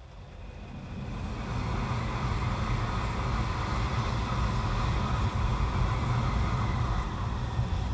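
Shinkansen bullet trains running at about 200 km/h on an elevated viaduct, two trains passing each other. The rushing rumble builds over the first two seconds as they come by, then holds steady and eases a little near the end.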